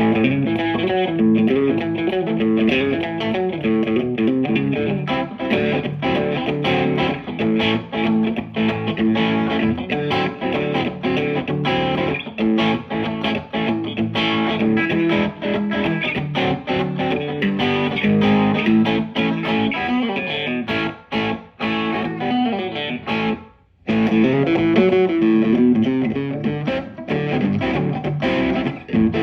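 Fender Stratocaster electric guitar with the bridge and middle pickups selected together, the out-of-phase position, played through a Maxon overdrive pedal in a run of picked notes and chords. The playing stops briefly about three quarters of the way through, then starts again.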